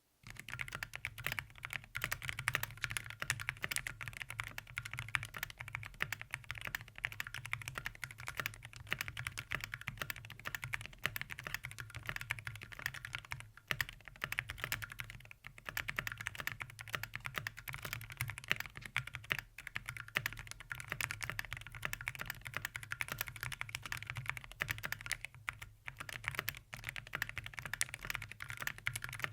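Mechanical keyboard with Akko Rosewood linear switches being typed on at a steady, fast pace, a dense run of keystrokes with a few brief pauses. The switches are tuned for a deep, thocky sound.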